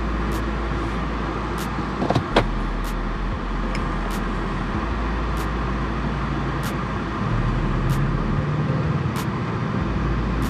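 2022 Kia Stinger GT-Line's 2.5-liter turbocharged four-cylinder running through its quad-tip exhaust as the car drives off, heard from behind. The engine note gets louder about seven seconds in.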